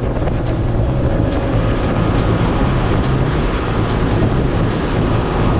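Boat's outboard motor running steadily with the boat under way, a continuous low drone with rushing noise over it. A faint high tick repeats a little more often than once a second.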